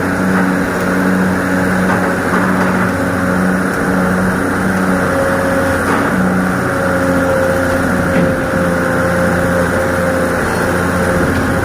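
Excavator's diesel engine running steadily under working load, with a low hum that pulses on and off about once a second.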